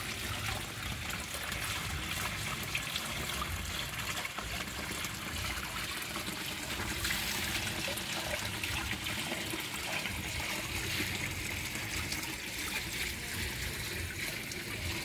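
Water from the pond's chamber filter spilling over a small waterfall outlet into a fish pond, a steady trickle and splash.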